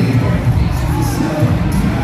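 Loud live hip-hop music with heavy bass, with crowd noise from a concert audience.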